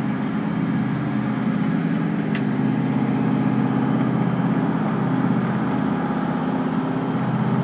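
Grand Banks 46 motor yacht's diesel engine running hard at cruising speed, about 1950 RPM: a steady, even drone.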